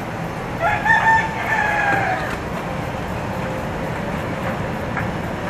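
A rooster crowing once: a single long call of about a second and a half that holds its pitch and then falls away at the end.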